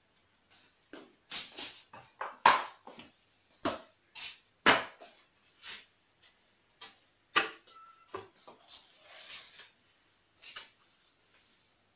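Irregular sharp knocks and clatters of someone tidying a small room, handling things around a sofa, with a brief soft scuffing stretch about nine seconds in.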